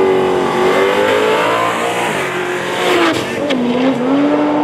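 Drag-racing Ford Cortina with a Ford Barra inline-six accelerating flat out down the strip. The engine note climbs, then drops sharply twice, about two and three and a half seconds in, and carries on loud.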